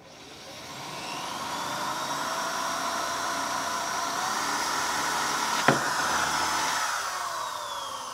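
Electric drill running under load as it bores a bolt hole through a stack of plastic shims into a boat's transom, a steady motor whine. A single sharp click comes about two-thirds of the way through, and the drill slows toward the end.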